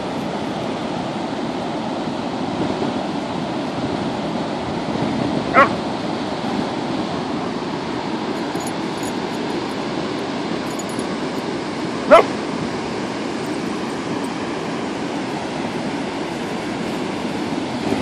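A dog gives two short yips, about six seconds apart, over a steady rush of wind and surf.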